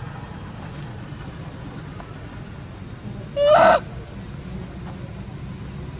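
A monkey gives one short, loud call about three and a half seconds in, over a steady background hum: a mother monkey calling for her baby.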